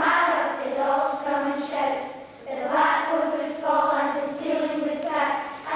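School children's choir singing, held sung notes with a short break about two and a half seconds in.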